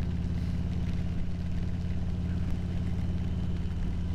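Harley-Davidson Road Glide's V-twin engine running steadily while the motorcycle cruises at an even speed, its pitch holding constant with no revving.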